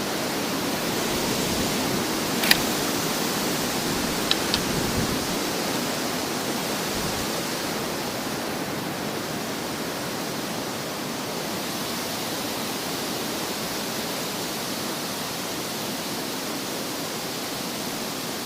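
Steady rushing of strong wind, with one sharp click about two and a half seconds in and two faint ticks a couple of seconds later.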